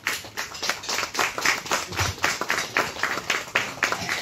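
Hand clapping: a run of quick, sharp claps.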